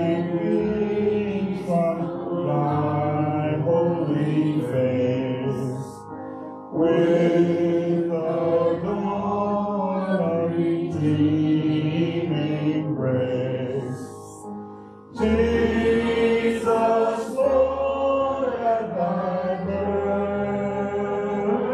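Slow vocal music: a sustained sung melody in long phrases, with brief pauses about six and fifteen seconds in.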